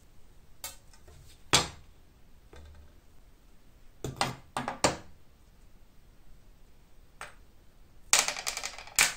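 Rusty scythe parts set down one by one in a glass tray: a few sharp knocks and clinks as the blade and wooden snath go in, then a quick rattle of metal clinks near the end as the small ring fitting and bolt are dropped onto the glass.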